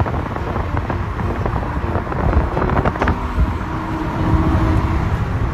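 Wind buffeting the microphone through an open car window at driving speed, with road noise from the moving car underneath.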